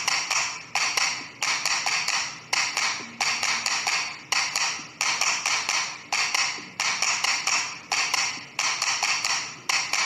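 Background music with a steady percussive beat of sharp, tapping hits, just under two a second.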